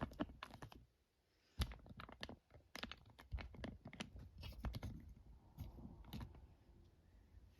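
Scattered light clicks, taps and knocks from a metal box fan being handled and set back in place, with a brief silent gap about a second in.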